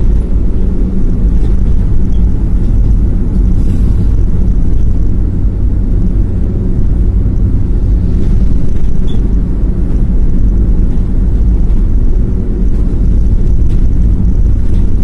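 Loud, steady low rumble of wind and road noise on the microphone of a moving vehicle driving along an asphalt road.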